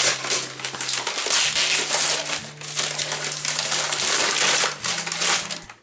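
Gift wrapping paper being torn and crumpled as a wrapped present is opened. It makes a continuous rough rustle with crackly tears that stops just before the end.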